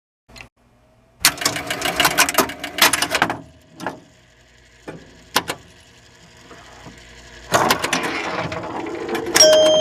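Rapid mechanical clicking and clattering, then a few single clicks, then a rushing noise that swells, with steady electronic tones starting near the end.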